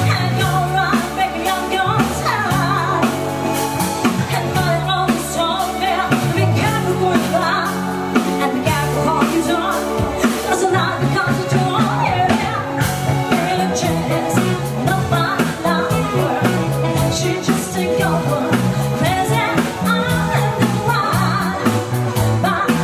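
Live band playing a song, a woman singing lead over electric guitar and drum kit. The low line holds long notes at first, then moves in shorter, quicker notes from about halfway.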